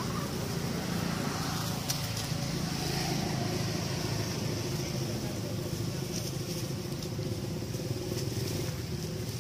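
A motor vehicle's engine running steadily, a low even hum.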